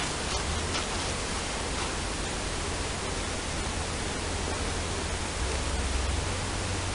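Steady, even hiss with a low rumble underneath, and a few faint clicks in the first couple of seconds.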